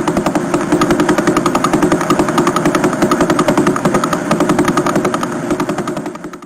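Spacecraft radio and plasma-wave recording converted into audible sound: a steady, rapid, even pulsing, roughly eight pulses a second, that cuts off suddenly near the end.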